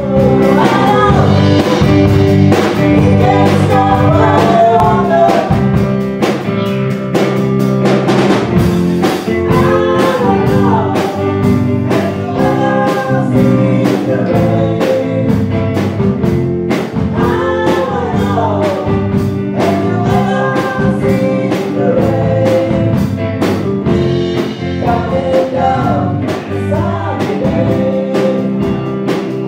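Band playing a song live: two women singing into microphones over an electric guitar and a PDP drum kit keeping a steady beat.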